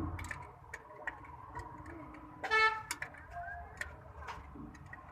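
A car horn sounds once briefly, about halfway through, over scattered light clicks and taps.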